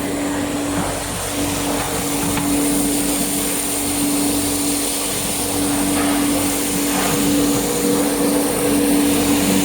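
Industrial air-bubble vegetable washing machine running: a steady motor and blower hum with a high whine over the constant rush of agitated water.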